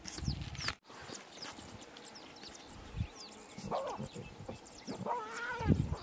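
Birds chirping with short falling notes, and an animal giving two wavering calls in the second half, the later one longer and louder.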